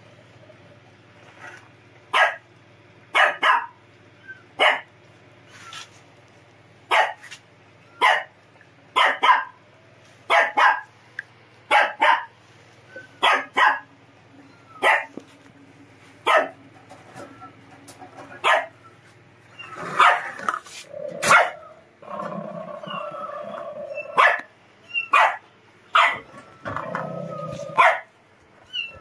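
A dog barking over and over in short, sharp barks, about one a second. In the last several seconds a longer, steadier sound runs between the barks.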